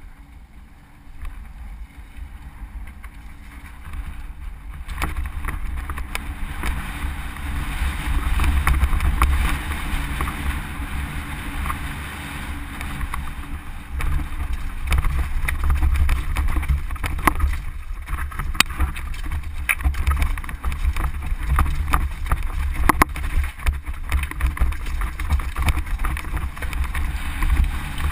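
Wind buffeting the microphone of a camera riding on a mountain bike, with the bike rattling and clattering over a rocky trail; it gets louder about five seconds in as the bike picks up speed.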